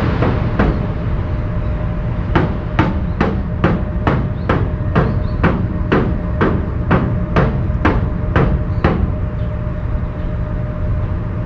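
A regular series of sharp knocks, about two or three a second, over a steady low rumble. The knocks pause briefly early on, then run again until about nine seconds in and stop.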